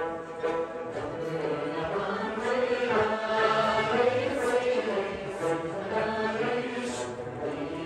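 Ensemble of Tibetan dranyen lutes strummed together while the players sing in unison, a chant-like group song that swells louder about three seconds in.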